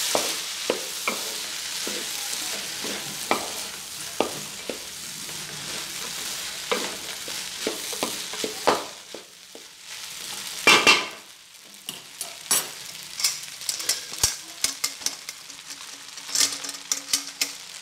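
Fried rice mixture sizzling in a metal pot while a spoon stirs and scrapes it in, with many short clinks of the spoon against the pot and a louder clatter about eleven seconds in. The sizzle fades as more cooked rice is added.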